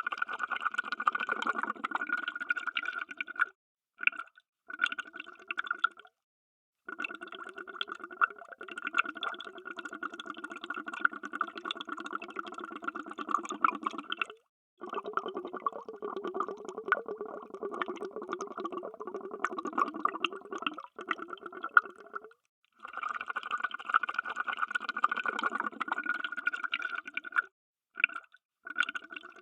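Underwater bubbles: a dense stream of bubbling and gurgling that comes in runs of a few seconds to several seconds, each cut off abruptly by a short silence, with a few brief bursts near the end.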